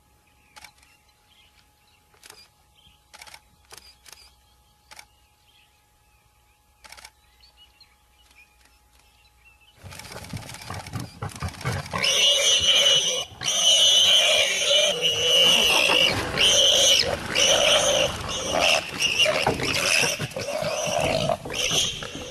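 Lions roaring loudly from about ten seconds in, after a near-quiet stretch broken only by a few faint clicks.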